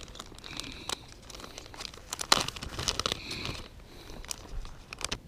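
Crinkling plastic of a soft-plastic fishing worm package being handled as a worm is taken out, with irregular crackles and clicks, the sharpest a little past two seconds in.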